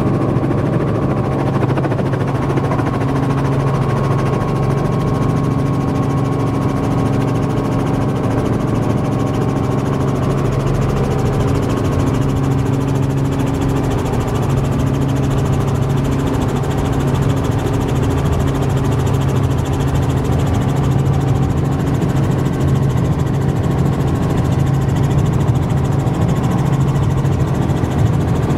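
Light helicopter's engine and rotors heard from inside the cabin: a steady, even drone with a low hum, running unchanged as the aircraft lifts off and climbs.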